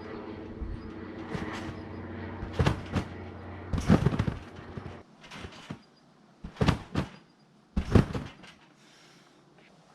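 A trampoline bed thudding under repeated jumps and landings, several bounces roughly a second apart. A steady hum runs under the first half and cuts off suddenly about five seconds in.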